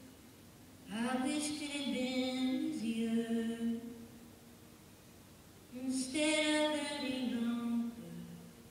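A woman singing solo with no accompaniment: two sung phrases, one starting about a second in and another about six seconds in, each two to three seconds long, with nothing else heard in the pauses between them.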